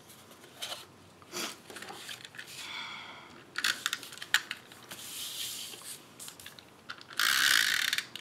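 Card stock and patterned paper being handled, slid and tapped on a tabletop: scattered light rustles and clicks, a short squeak about three seconds in, and near the end a loud harsh rasp lasting almost a second.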